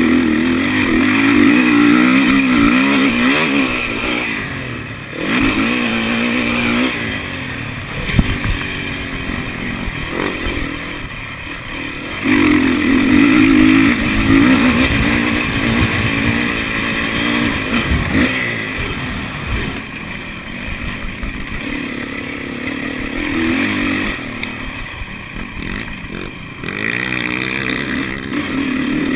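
Dirt bike engine heard on board while being ridden hard: the throttle is opened again and again, the pitch climbing with each pull, then backed off into quieter lulls before the next burst.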